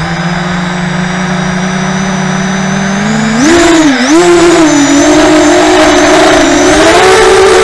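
FPV racing quadcopter's brushless motors and propellers on a 3S LiPo battery: a steady whine at low throttle on the ground, then about three and a half seconds in the throttle comes up for takeoff and the pitch jumps higher, wavering up and down as the throttle changes in flight.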